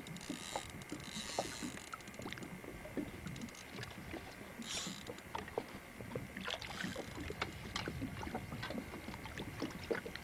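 Water lapping and splashing against the side of a small boat, with many small knocks and a few short splashy hisses, the clearest about a second in and near five seconds.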